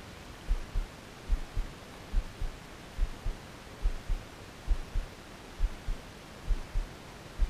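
Low double thumps, about one pair a second, of the angler's steady lure retrieve with rod and reel transmitted through the chest-mounted camera, over a faint hiss of wind and water.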